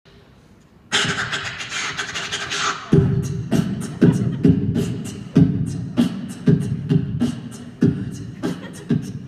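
A person beatboxing a steady beat, about two kick-and-snare hits a second, starting about three seconds in after a couple of seconds of hissing noise.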